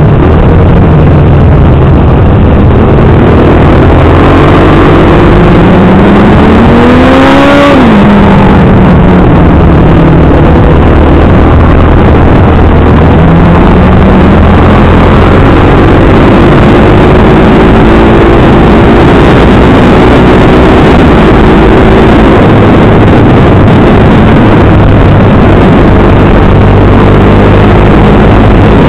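Motorcycle engine under way, its pitch climbing as it accelerates, dropping sharply about seven and a half seconds in, then climbing slowly again, under a constant heavy rush of wind on the bike-mounted microphone.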